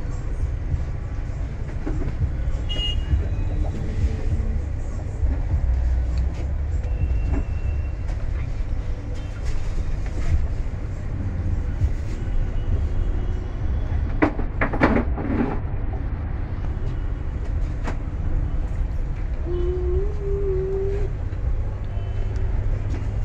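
Steady low rumble, with a quick cluster of sharp high-pitched sounds about two-thirds of the way through and a short wavering tone near the end.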